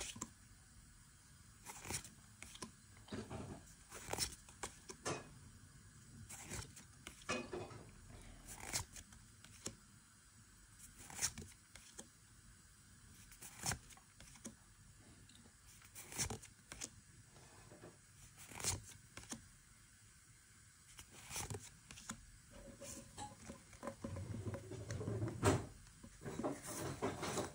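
Pokémon trading cards being handled: a short, soft swish or click every second or two as each card is slid from the stack to show the next one. The handling gets louder and busier near the end.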